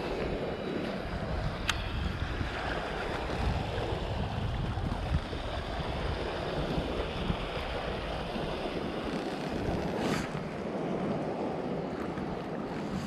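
Wind buffeting the microphone over choppy lake water lapping and splashing, with one sharp click about two seconds in and a brief rush of noise about ten seconds in.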